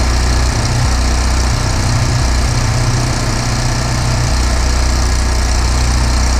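An engine running steadily, with a constant hiss laid over it.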